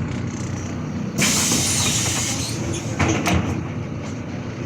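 MAZ-215 articulated bus's pneumatic doors working at a stop: a sudden hiss of released air about a second in, lasting about a second, then a clunk a moment later as the doors finish moving, over the bus's idling engine.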